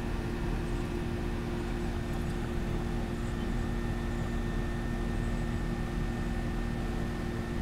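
Steady machine hum with a constant low two-note drone over an even hiss, unchanging throughout.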